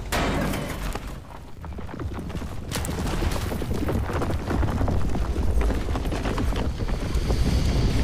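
Deep rumbles and booms from a monster-movie sound mix, with faint music under them. The sound drops off about a second in, then builds back up.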